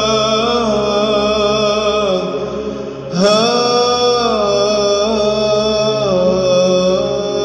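Arabic Byzantine chant: a solo voice draws out the last syllable of 'lak' in a winding melisma over a steady low drone. After a short dip, a new phrase begins about three seconds in on the first syllable of 'hatifan'.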